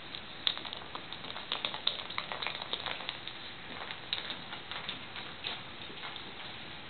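Treats rattling and clicking inside a treat-dispensing ball as a dog rolls it along: an irregular run of small clicks, busiest about a second and a half to three seconds in.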